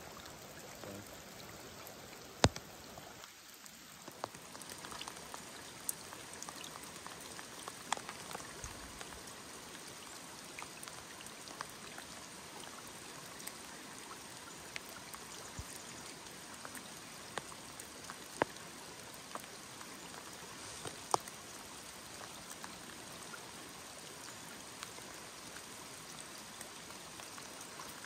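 Steady hiss of rain and a high-running river, with scattered sharp raindrop ticks close by, a few of them loud.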